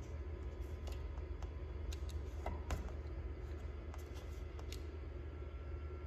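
Light clicks and taps from a gloved hand handling metal garage-door lock hardware, about two a second, the sharpest a little before the middle, over a steady low hum.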